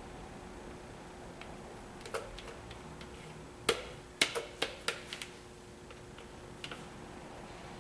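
A scatter of sharp clicks and taps from small bottles and caps being handled, about a dozen in all and bunched together in the middle, over a faint steady hum.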